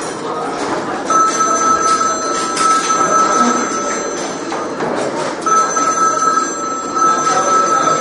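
A telephone ringing with a steady electronic tone, in two long rings with a short break a little before the five-second mark, over the chatter of a crowded dining hall.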